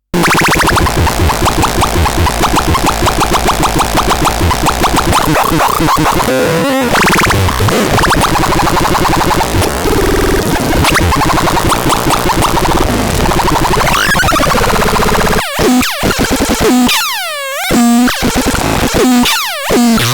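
Kantazon synthesizer making harsh, noisy electronic tones: a dense buzzing drone pulsing rapidly for the first few seconds, then pitch sweeps, and in the last several seconds a series of falling pitch glides with brief gaps between them.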